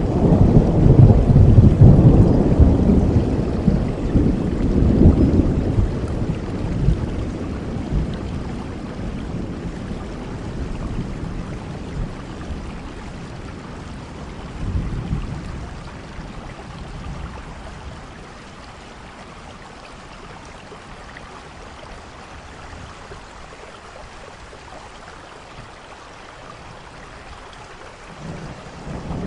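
Rain with thunder: a long, loud roll of thunder over the first several seconds that slowly dies away, a smaller rumble about halfway through, and another starting near the end, over a steady rain hiss.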